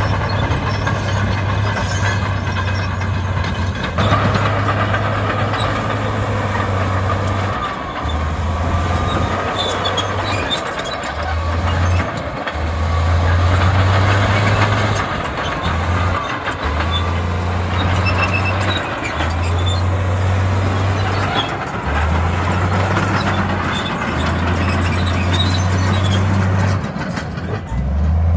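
Heavy diesel engine of a bulldozer working under load, its low drone stepping up and down in pitch every couple of seconds, under a dense gritty clatter.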